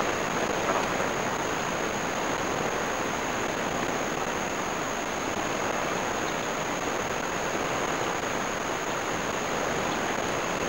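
Steady wash of ocean surf breaking on the beach, with a constant thin high tone running over it.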